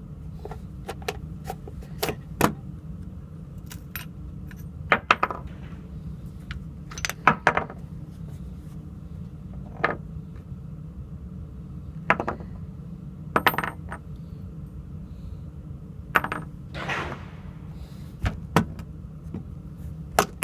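Scattered metallic clinks and clicks, about a dozen at irregular spacing, a few with a brief high ring: rifle cartridges and parts being handled. A steady low hum runs underneath.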